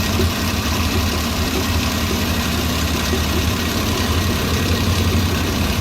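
Suzuki Bolan three-cylinder petrol engine idling steadily with a slightly uneven beat. It is missing: one cylinder (the first) is not firing, so disconnecting that cylinder's connector makes only a slight difference.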